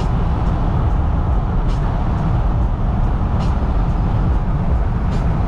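Steady low rumble of road and wind noise inside a moving car's cabin, with a few faint clicks.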